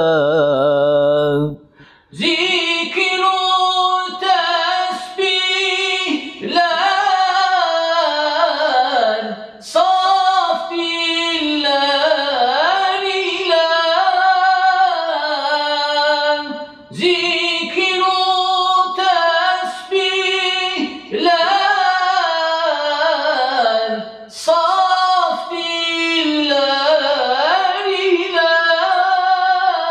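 A man singing an Islamic ilahi hymn solo and unaccompanied in makam Acemaşiran. The long, ornamented phrases glide up and down in pitch and pause briefly for breath every few seconds.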